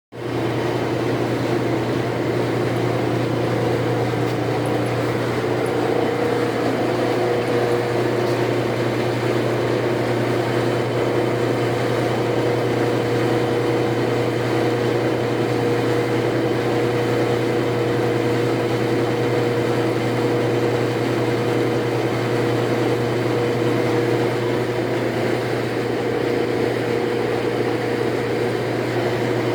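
Lodge & Shipley 18-inch heavy-duty selective-head engine lathe running under power, its geared headstock giving a steady hum with a constant higher tone above it. It starts abruptly and stays even throughout.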